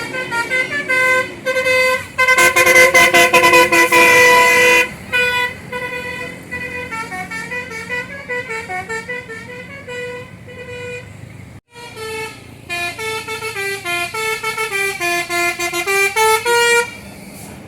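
Bus basuri (telolet) musical horn playing tunes of stepping notes. About two seconds in, a loud chord of several notes is held for over two seconds; then come runs of short notes. After a brief break near the middle, another melody falls and rises again.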